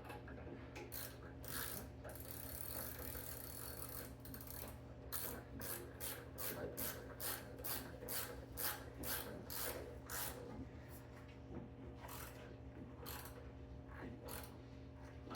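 Hand ratchet clicking in runs of short strokes, about three clicks a second at its busiest, with pauses between, as the motorcycle's 6mm fuel tank bolts are tightened.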